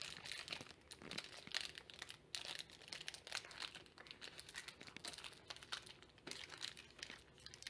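Foil trading-card booster pack wrapper crinkling in the hands as it is worked and torn open, a steady run of irregular small crackles.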